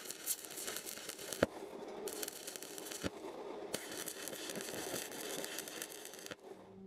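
Stick (arc) welding on a steel angle-iron frame: the electrode arc crackles and sizzles in runs of a second or more with short breaks between, and stops shortly before the end.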